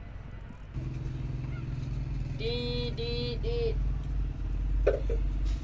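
A motor vehicle engine starts running about a second in and keeps going steadily at idle. Midway there are three short, evenly spaced honks.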